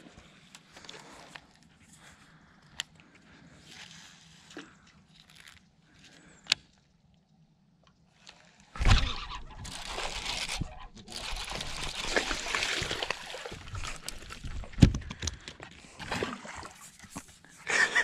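A hooked bass splashing at the water's surface beside the boat, starting about nine seconds in after a quieter stretch of faint clicks, with scattered knocks.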